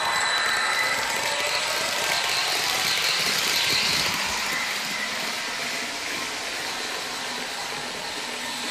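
H0-scale Liliput Stadler KISS model train rolling past on its track, making a steady rushing running noise from its wheels and motors. The noise is loudest as the last car passes about four seconds in, then fades as the train runs away.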